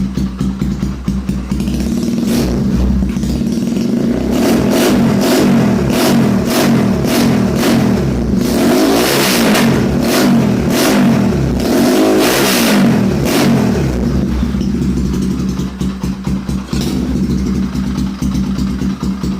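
Yamaha Scorpio motorcycle's single-cylinder four-stroke engine breathing through a GRC aftermarket muffler: idling, then revved in a series of quick throttle blips with the pitch rising and falling, and settling back to idle for the last few seconds.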